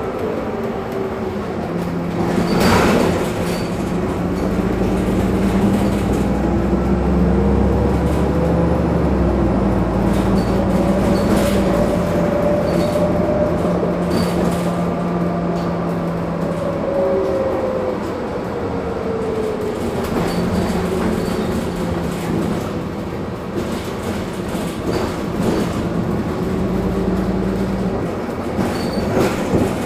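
Heuliez GX 137 city bus under way: its engine runs with a whine that rises and falls as the bus speeds up and slows, over a steady low hum and body rattles. A sharp knock comes about three seconds in.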